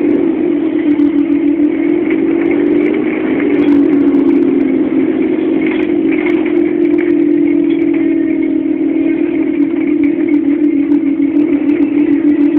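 Volvo Olympian double-decker bus's diesel engine running as the bus drives, heard from inside the passenger cabin as a steady drone that wavers a little in pitch.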